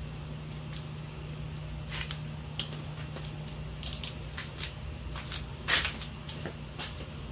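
Handling noises: scattered rustles, light clicks and scuffs of someone moving about and putting on gear, with a louder rustle a little under six seconds in. A steady low hum runs underneath.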